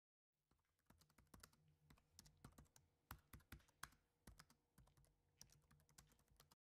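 Fingers typing on a laptop's chiclet keyboard: a quick, irregular run of faint key clicks that starts just after the beginning and cuts off abruptly near the end.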